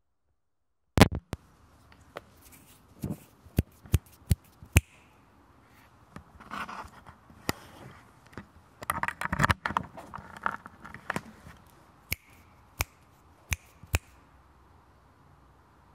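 Footsteps on a stairwell's steps, heard as sharp separate knocks in short runs, with rustling and scraping from the handheld recorder in between. A loud knock comes about a second in, after a second of silence.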